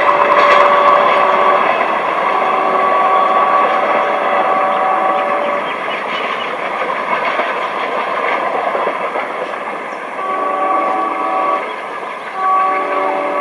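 Passenger train rattling over the track as it moves away, the noise slowly fading, while the WDG3A ALCo diesel locomotive's air horn sounds a chord of several notes in four blasts: one at the start, a longer one of about three seconds, then two more near the end.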